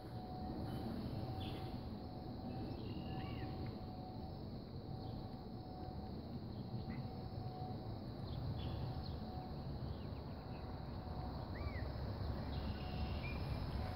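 Somfy electric motor running steadily with a faint, evenly pulsing hum as it rolls up the awning's solar drop screen, under a low outdoor rumble with two short bird chirps.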